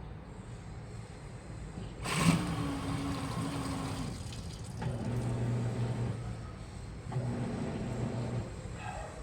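Washing machine running: a low motor hum that starts and stops in stretches of a second or two, with a sharp thump about two seconds in.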